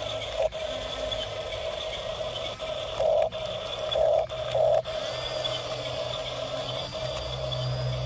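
Electric drive motors and gearboxes of a toy RC bulldozer whining steadily as it crawls on its tracks pushing gravel, swelling louder in three short surges around the middle.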